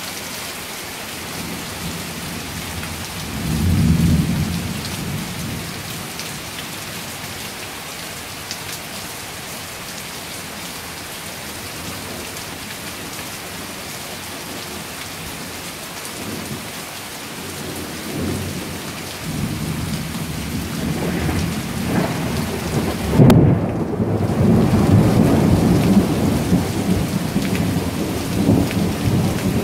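Steady heavy rain falling, with a short low thunder rumble about four seconds in. Thunder builds again about two-thirds of the way through, breaks into a sharp crack, and rolls on in a rumble to the end.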